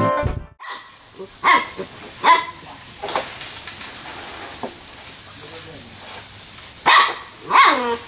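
A puppy giving short, sharp yaps, three in the first few seconds and two more near the end, over a steady high-pitched insect buzz.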